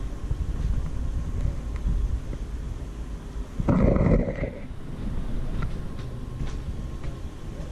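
Low, steady rumble of handling and wind noise on a handheld camera's microphone as it is swung around, with a brief louder bump about four seconds in.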